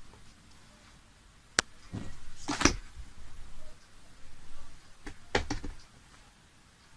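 A sharp click, then a few knocks and rustles of objects being handled, in short scattered bursts.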